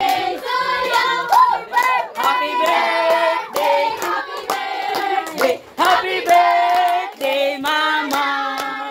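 A group singing together, children's voices among them, with steady rhythmic hand clapping keeping the beat, about two to three claps a second.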